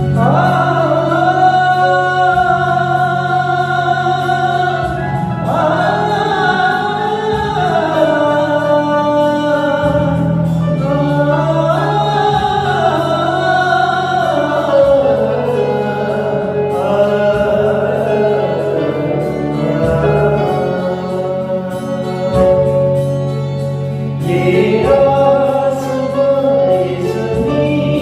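A song: voices singing slow melodic lines with long held notes over a steady instrumental backing with a sustained low note.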